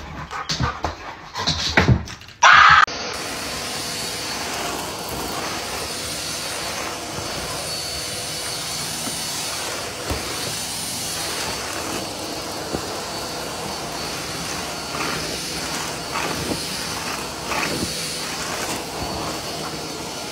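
Stick vacuum cleaner running steadily, an even rushing noise with a faint high whine. Before it, about two and a half seconds of a dog's excited yips and scuffling, ending in a brief loud burst.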